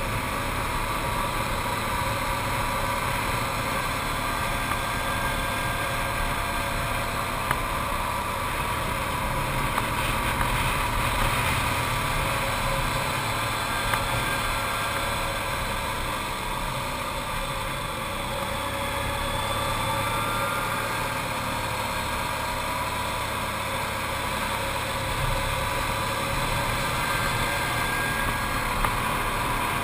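Arctic Cat TRV 1000 ATV's V-twin engine running steadily while climbing, its pitch wavering gently up and down.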